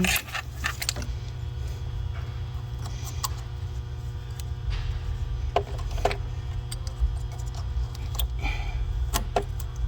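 Scattered light clicks and taps of parts and tools being handled while a fuel line and connectors are refitted on an engine, over a steady low hum.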